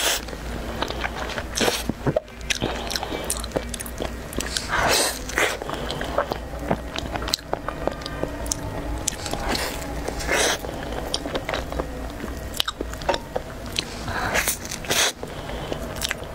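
Close-up biting and chewing of soft cream-filled bread buns: wet mouth sounds with many small irregular clicks and smacks, and a louder bite every few seconds.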